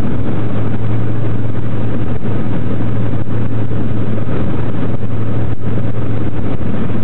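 Light aircraft's engine and propeller running steadily, heard inside the cabin: a loud, even drone with a strong low hum.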